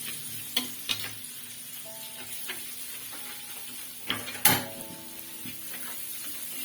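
Food sizzling in hot oil in a pan while a spatula stirs it, with a few sharp knocks of the spatula against the pan, the loudest a little past the middle. Faint background music plays underneath.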